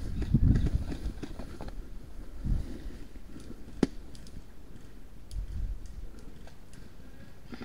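Footsteps and rustling of someone moving through long grass, with dull thumps of movement on the microphone and a single sharp click about four seconds in.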